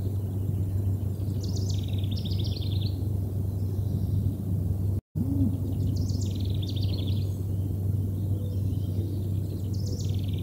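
A songbird repeating the same short song three times, about four seconds apart: a few high notes followed by a quick buzzy trill. Under it runs a steady low rumble of outdoor background noise. The sound cuts out completely for a moment midway.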